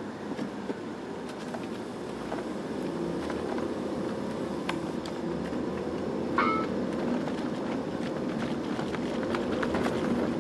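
Engine and road noise inside a car cabin as it pulls away from a stop and gathers speed, slowly growing louder. Scattered light clicks, and a short high tone about six seconds in.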